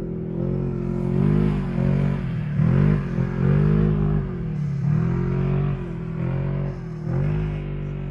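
Off-road side-by-side's engine revving up and down as it drives over soft sand dunes, its pitch rising and falling every second or so.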